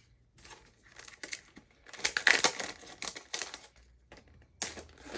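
Packaging crinkling and rustling as a stationery item is unwrapped and handled, in a run of irregular bursts that are loudest about two seconds in.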